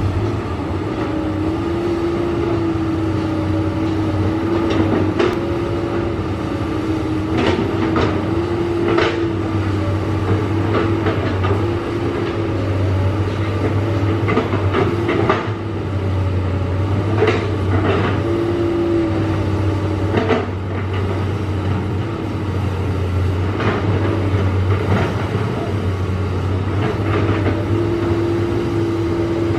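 Excavator's diesel engine running steadily under load, with a held tone that wavers slightly. Irregular knocks and clanks of the working machine come every second or two.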